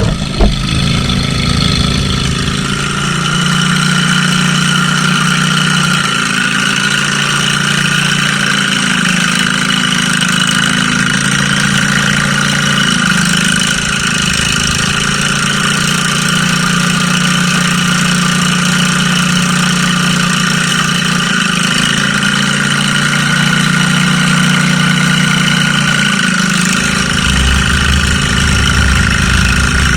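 Mud mower's small engine (a riding lawn mower built for mud) running steadily, its speed dipping and rising a little now and then. A sharp click comes just after the start, and a deeper low rumble joins near the end.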